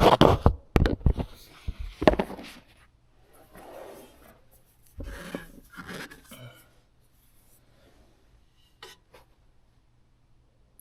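Close-up handling noises: a cluster of knocks and rustles, then quieter scraping and a single click, fading to quiet.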